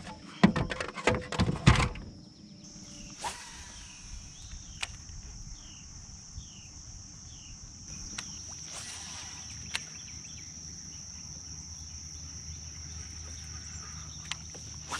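Loud knocks and clatter on a kayak for the first two seconds, then a steady high-pitched drone of insects, with three short falling bird chirps about five seconds in.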